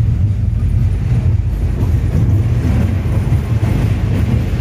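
Passenger train running along the track, a steady low rumble heard from inside the carriage.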